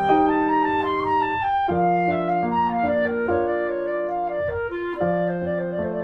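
Background music: a slow tune of held notes that change every second or so.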